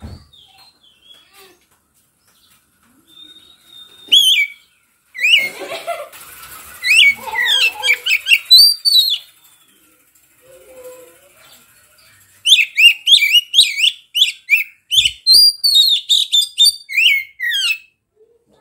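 Oriental magpie-robin (kacer) singing loudly in varied, sliding whistled phrases. In the second half it gives a long run of quick, sharp repeated notes.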